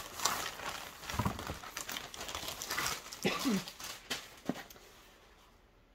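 Plastic shipping mailer rustling and crinkling as a boxed doll outfit is pulled out of it and set down, dying away near the end.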